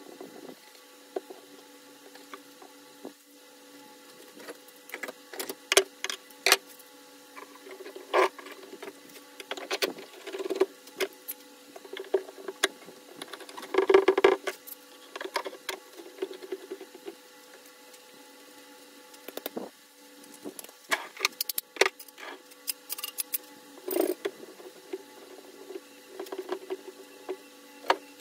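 Scattered light knocks and clicks of wooden strips and tools being handled during a cutting-board glue-up, with a louder rattling cluster about halfway through, over a faint steady hum.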